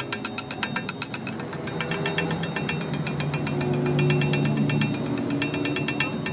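Machinery in a metalworking shop making rapid, even metallic ticking, about seven ticks a second, over a low steady hum. The ticks are sharpest in the first second.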